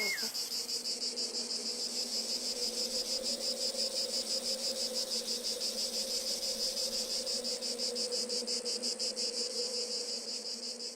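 Insect chirping in a fast, even pulse, about six chirps a second, holding steady throughout. A low steady hum runs beneath it, and a brief high whistle-like call sounds right at the start.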